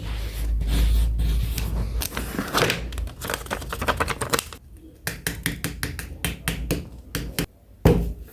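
Fingernails clicking and tapping the toys on a fidget board: a fast run of sharp clicks, with heavier handling and rubbing noise in the first two seconds.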